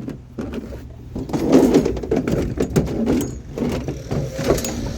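A vehicle engine running steadily under uneven noise, with a louder noisy stretch about one and a half seconds in.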